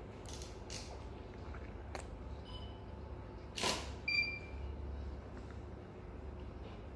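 A camera shutter fires once, a short sharp burst, followed about half a second later by a brief high electronic beep, as a passport photo is taken; a low steady room hum lies underneath.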